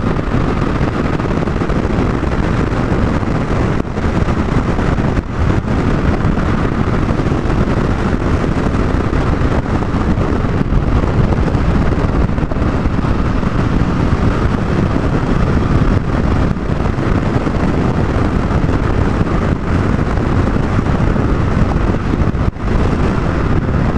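Wind rushing over the camera microphone on a moving motorcycle, with the Triumph Tiger 1050's three-cylinder engine running at road speed underneath. The noise dips briefly a few times.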